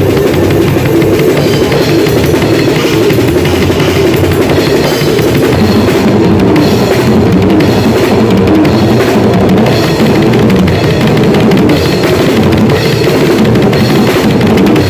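Drum kit played hard and without a break, a dense, loud stream of hits.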